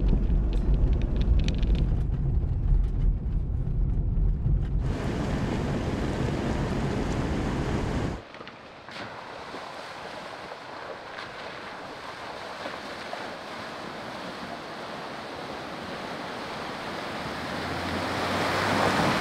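Wind buffeting a hood-mounted microphone over the low rumble of a Jeep Gladiator Rubicon driving a dirt trail; about eight seconds in, this cuts to a creek's steady rushing water, and near the end the Jeep's engine hum and the splash of its tyres pushing through the ford swell as it comes closer.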